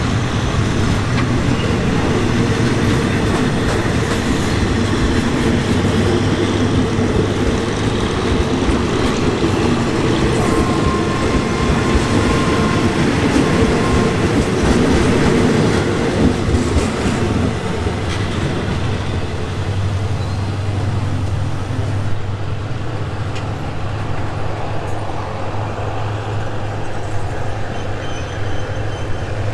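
Passenger train running along the track, heard from inside a third-class coach: a steady rumble and rattle of wheels on rails, easing a little somewhat over halfway through.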